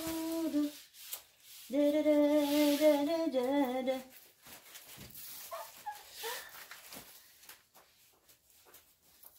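A woman humming a tune in held, slightly wavering notes, a short phrase that stops about a second in and a longer one from about two to four seconds. After that come only faint rustles and light clicks.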